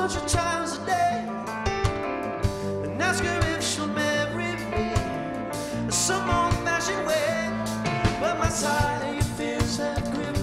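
Live band playing: electric guitar, keyboards and drum kit, with a man singing.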